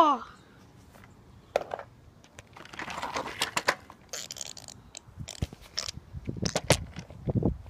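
Handling noise close to the microphone: scattered clicks, taps and rustles as fingers move over the phone, with a few duller knocks near the end.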